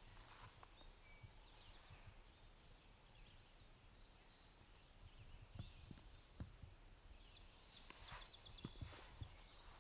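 Near silence: faint woodland birdsong, a few short chirps that are strongest near the end, with a few soft thumps in the second half.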